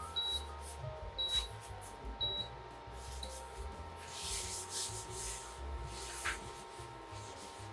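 Paper towel rubbed around the inside of a frying pan: a dry, scrubbing hiss from about four to five and a half seconds in, after a couple of light clicks near the start. Faint background music with short high beeping notes runs underneath.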